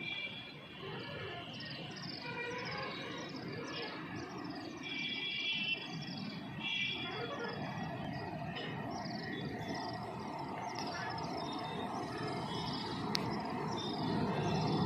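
Birds chirping in quick, repeated short falling calls, with a low rumble building near the end as a train approaches.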